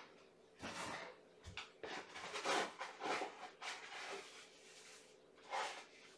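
A string of short scratchy scuffs and rustles, irregular in spacing, as a long-haired cat pounces and rolls on the floor, playing.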